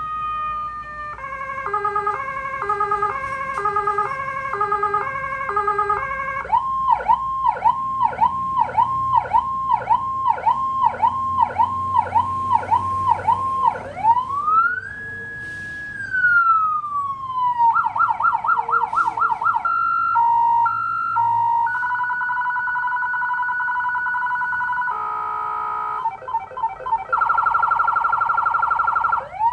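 Electronic emergency-vehicle siren cycling through its tone patterns, changing every few seconds. It runs a stepped multi-tone pattern, then a fast yelp sweeping up and down about twice a second, then a slow wail that rises, holds and falls. After that come a rapid warble, a high-low alternation, a steady tone and another rapid warble.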